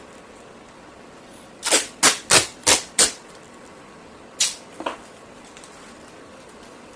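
Short, sharp rasping strokes from tape being worked onto the cardboard frames of furnace filters. Five come in quick succession, about a third of a second apart, then two more about a second and a half later.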